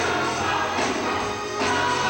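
Church choir singing a gospel song with instrumental accompaniment.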